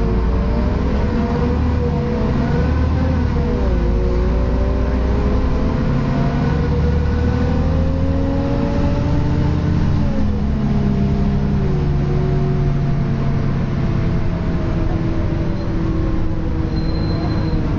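Interior sound of a Wright StreetCar articulated bus on a Volvo B7LA chassis under way: a low drivetrain rumble with an odd wailing tone that slowly rises and falls in pitch. The uploader suspects a cooling fan issue.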